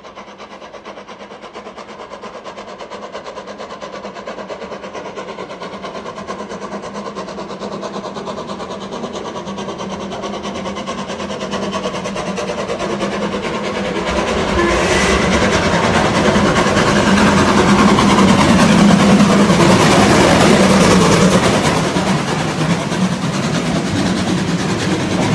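Steam locomotive hauling a train approaching and running through the station, growing steadily louder and loudest as it passes close by, then its coaches rolling past on the rails.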